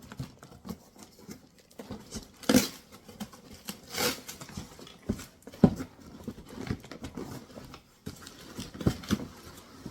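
Loose metal parts of a bike repair stand being pulled out of their tightly packed cardboard box: irregular rustling and scraping with a handful of sharp knocks.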